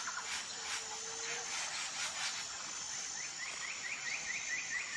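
A small bird chirping rapidly, a run of short falling chirps about five a second starting about three seconds in, over a faint steady hiss.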